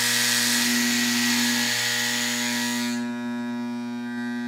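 Andis Master hair clipper's magnetic motor running with a loud rattling from the blade assembly, which cuts out about three seconds in as the tension screw is turned, leaving a steady humming. The rattle going away marks the right blade tension being reached.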